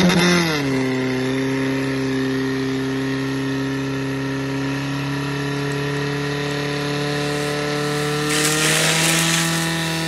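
Portable fire pump's petrol engine revved up hard, then held at high speed as it pumps water through the laid-out hoses. A rush of hissing spray joins it for about a second near the end as the water jets spray.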